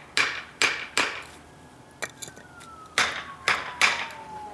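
A hammer strikes a wooden block laid on a brick paver about seven times, in uneven sharp knocks, tapping a slightly raised paver down into its bed. Behind the knocks, a faint siren wails, its pitch sliding slowly down.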